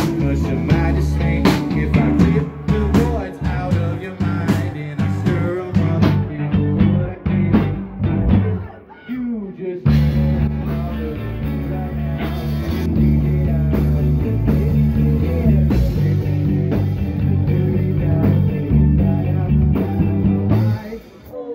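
A live rock band playing: electric guitars, bass guitar and drum kit, with a singer. About nine seconds in the music thins and drops briefly, then comes back fuller and steadier; near the end it dips again for a moment.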